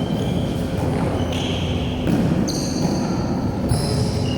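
Sneakers squeaking several times on an indoor court floor, short high-pitched squeals over the steady hubbub of a sports hall.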